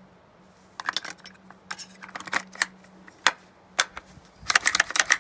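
Metallic clicks and scrapes of the Intratec Tec-22 .22 LR pistol's bolt being fitted back into the gun by hand: irregular sharp clicks starting about a second in, with a quick flurry of clicks near the end.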